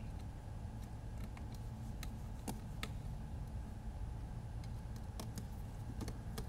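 Scattered small clicks and taps as hands handle a small drone's plastic frame and parts with a small screwdriver, irregular and a few a second at most. A faint steady hum runs underneath.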